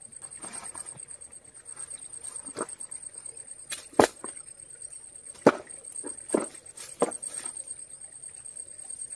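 A steady high-pitched buzz, with several sharp knocks and rustles; the loudest knock comes about four seconds in.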